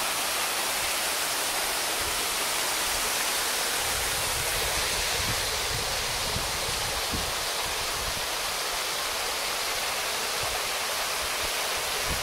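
Steady rushing hiss, even and unbroken, with low gusts of wind buffeting the microphone now and then.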